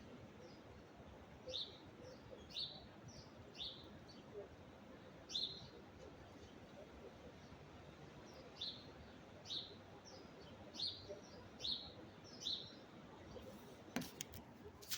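A small bird chirping, short high calls repeated at irregular intervals of about a second, over a steady rush of wind noise. Two sharp clicks near the end.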